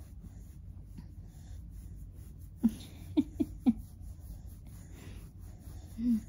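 A dog giving four quick, short grunts in a row, then one slightly longer low grunt near the end.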